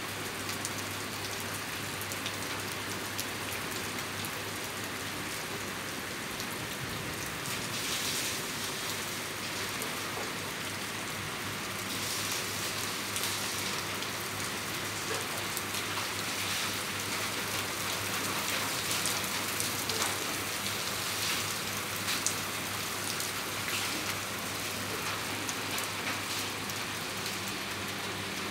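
Heavy rain falling steadily onto standing water on a flat concrete surface, a dense patter of drops splashing.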